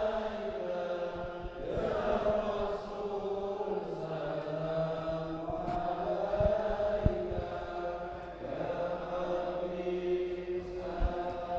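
Men's voices chanting an Arabic sholawat (praise of the Prophet Muhammad) together, in long drawn-out held notes. A few short low thumps are heard, the loudest about seven seconds in.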